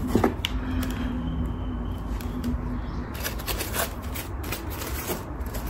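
Packaging rustling and crinkling in irregular crackles as a pair of shoes is unwrapped by hand, over a steady low hum.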